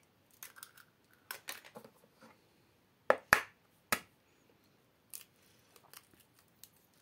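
Eggshells being cracked on the rim of a plastic bowl and pulled apart by hand: a scatter of light clicks and crackles, with three sharper cracks about three to four seconds in.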